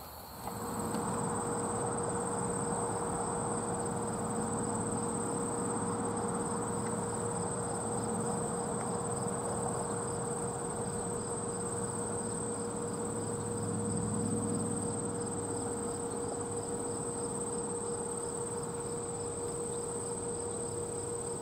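Crickets or other insects chorusing: a steady, high-pitched continuous trill with a fainter, evenly pulsing insect call beneath it. It runs over a low, steady rushing background noise and a faint steady hum.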